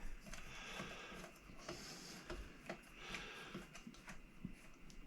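Faint scattered clicks and light scrapes of screwdriver and hand work taking the pickups out of an electric guitar.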